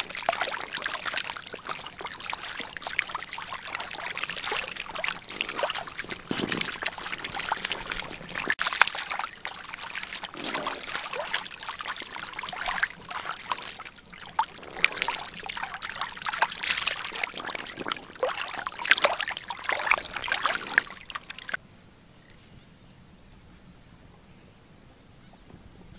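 Large catfish flopping and thrashing in wet mud and shallow muddy water, a dense irregular sloshing and slapping of mud and water. It cuts off suddenly near the end, leaving only a faint hiss with light high ticks.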